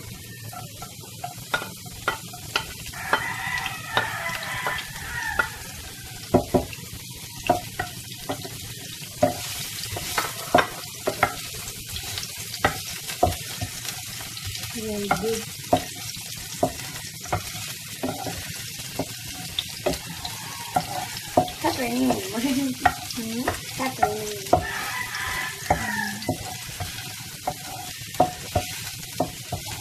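Chopped garlic and onion sizzling in oil in a nonstick frying pan, stirred with a wooden spatula that knocks and scrapes against the pan in many sharp, irregular taps over a steady frying hiss.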